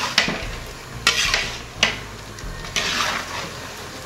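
A metal spatula scraping and knocking against the inside of a large metal degh as chicken pieces are stirred through hot oil and masala, about one stroke a second, over a steady sizzle of frying.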